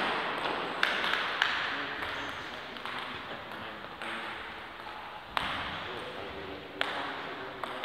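Table tennis ball clicking sharply a few times, spaced well apart, against bats or the table, over low voices.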